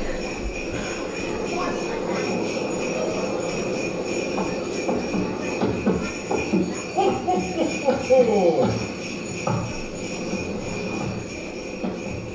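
Jingle bells ringing steadily.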